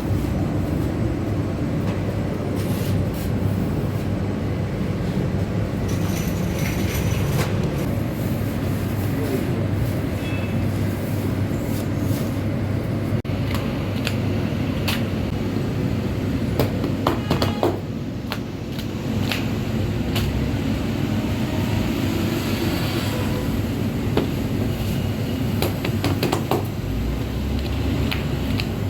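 Steady low rumble of running bakery machinery, with scattered clicks and clatters on top.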